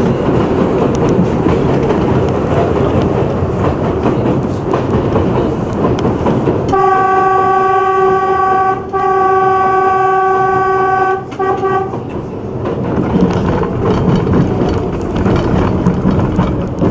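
Subway train running on the elevated line, wheels rumbling and clattering, with its horn sounding about seven seconds in: two long blasts and a short third one on one steady pitch.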